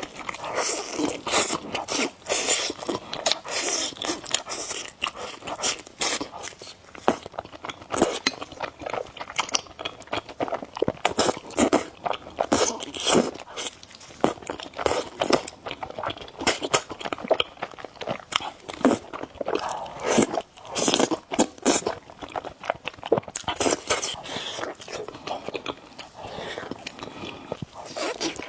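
Close-miked eating: a steady run of crunchy bites and chewing, dense irregular crackles and clicks.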